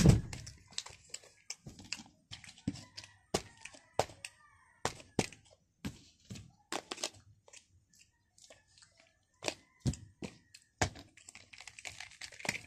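Plastic packaging being handled, crinkling with a string of sharp, irregular clicks and snaps, the loudest one right at the start.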